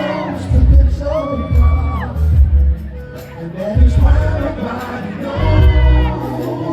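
Live pop music played loud through a PA in a large hall: a singer holding long notes over a heavy, pulsing bass beat, with the crowd audible underneath.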